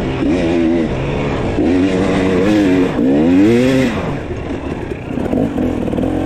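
Dirt bike engine on a trail ride, its pitch rising and dropping back several times as the throttle is opened and closed.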